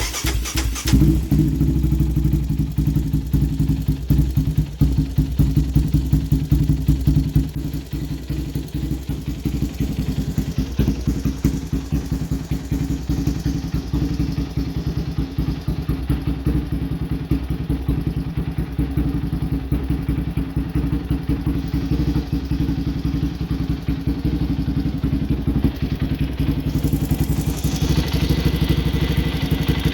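Yamaha Raptor 700's single-cylinder engine starting and running, a little louder for the first several seconds before settling into a steady idle. It is a test start after a new spark plug and racing plug cable, and the idle is uneven, which the owner puts down to other modifications that still need a new tune.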